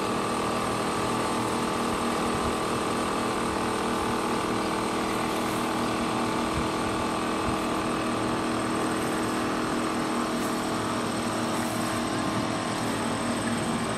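Small electric water pump of a solar pump unit running with a steady hum while it primes, drawing water up the intake hose before any reaches the outlet.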